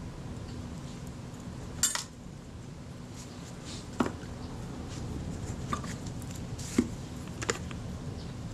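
Metal tweezers clicking and tapping against the small metal parts of a Kodak Retina IIa camera while a tiny spring is being fitted. There are a handful of sharp clinks; the loudest, about two seconds in, has a short rattle. A steady low hum runs underneath.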